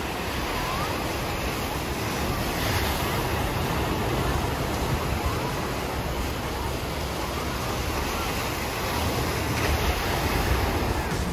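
Waves breaking and churning across an artificial surf pool driven by a Wavegarden Cove wave generator: a steady rush of water with wind buffeting the microphone.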